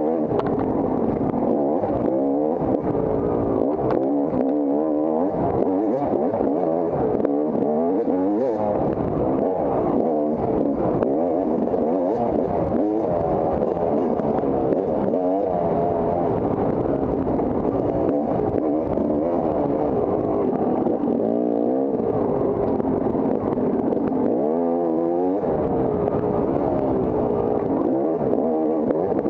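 Off-road dirt bike engine revving up and down without a break as it is ridden hard over a trail, its pitch constantly climbing and dropping with throttle and gear changes.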